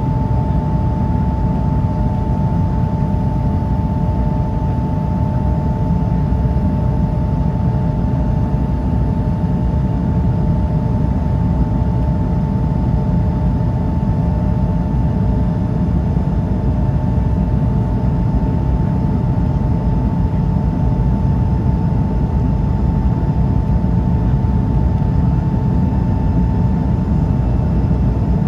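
Inside the cabin of an Airbus A220-300 in its climb: the steady low roar of airflow and its Pratt & Whitney PW1500G geared turbofan engines, with a constant high hum on top.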